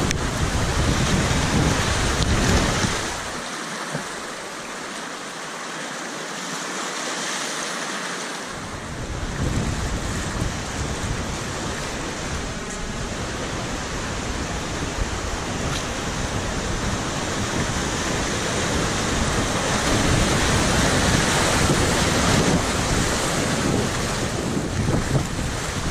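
Whitewater river rushing around a kayak, a steady roar of churning water heard from a camera low on the boat, with wind buffeting the microphone. It drops quieter for a few seconds near the start, then builds up again.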